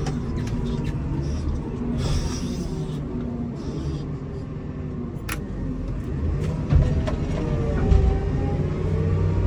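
Komatsu WA270 wheel loader's diesel engine running under load, heard from the cab, its pitch rising and falling as the loader works. Two heavy thumps come near the end.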